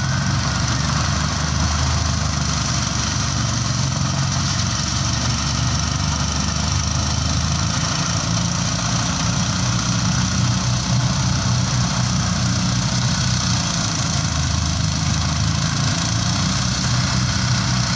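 New small diesel engine running steadily while driving a rice threshing machine. The engine's low running note shifts slightly about halfway through, with the thresher's steady mechanical noise over it.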